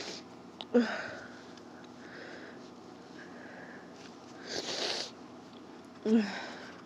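A person with a head cold sniffling. There are two sharp, loud sniffs, about a second in and near the end, and a softer, longer sniff just past the middle.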